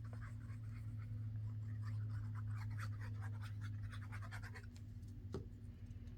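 Paper being handled and rubbed down by hand, a run of irregular short scratchy strokes, then a single sharp tap a little after five seconds in.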